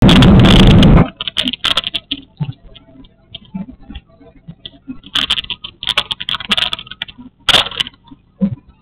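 A loud, distorted rush of noise for about the first second, then irregular sharp clicks and rattles close to the microphone: handling noise from a small camera as it is moved about against the cabin window.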